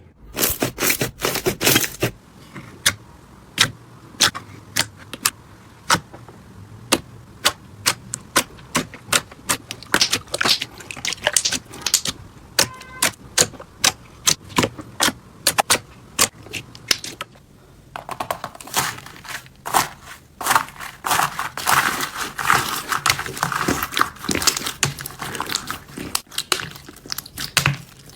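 Slime being pressed and stretched by hand, giving a string of sharp, irregular pops and clicks that turn into a denser crackling about two-thirds of the way through.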